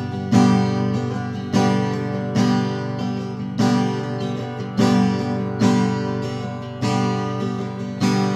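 Acoustic guitar strummed in full chords, a strong strum about once a second, each chord left to ring and fade before the next.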